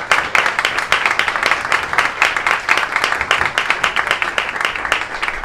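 Applause from a small audience and panel: many hands clapping steadily, thinning slightly near the end.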